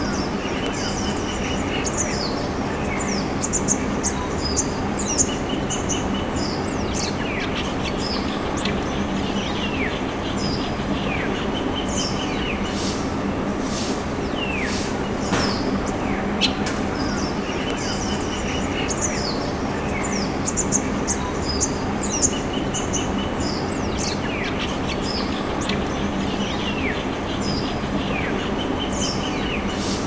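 Wild birds chirping and calling in short sweeping notes and brief trills, over a steady background hiss with a low hum. A faint high-pitched tone pulses about once a second throughout.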